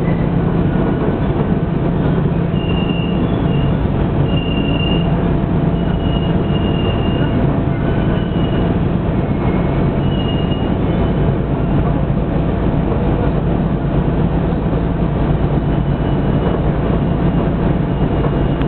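Diesel railcar running along the line, heard from inside the car: a steady engine and wheel-on-rail rumble. Brief high-pitched wheel squeals come and go during the first half and return faintly near the end.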